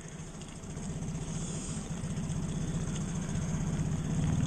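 Small boat's outboard motor running steadily at slow trolling speed, a low, even hum that grows a little louder toward the end.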